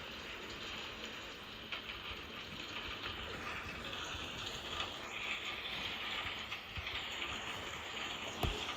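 Steady rain ambience, an even patter of rain with scattered small clicks, and one sharp knock near the end.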